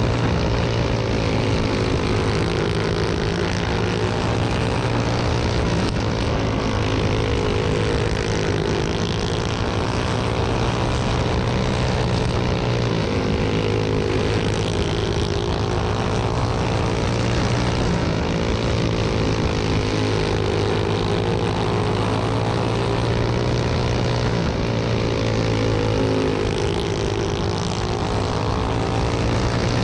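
Racing go-kart engine running hard at speed, heard from on board the kart, its pitch rising down the straights and dropping into the turns in a repeating swell every few seconds.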